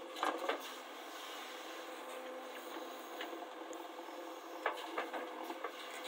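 JCB backhoe loader at work: its diesel engine runs steadily, sounding thin with no deep rumble, while the rear bucket scrapes through loose soil. A few sharp knocks come just after the start and again about five seconds in.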